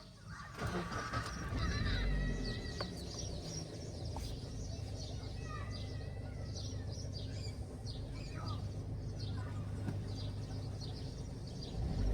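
Car petrol engine starting about half a second in, then idling with an unsteady speed that rises and falls. The uneven idle is the sign of a misfire on cylinder 4.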